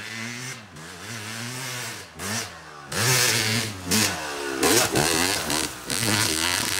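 Yamaha YZ250X two-stroke dirt bike revving up and down as it is ridden along a wooded track. It gets loud about three seconds in, with hard throttle blips as the bike passes close, and stays loud to near the end.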